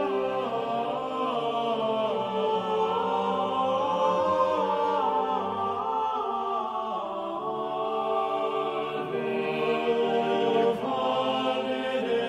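A choir singing slow, held chords in a chant-like style, the harmony moving to a new chord every second or two.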